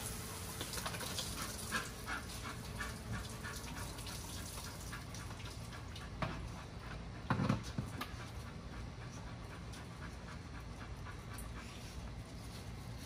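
XL American bully dog panting quickly and steadily, about three to four breaths a second, with a brief louder sound a little past halfway.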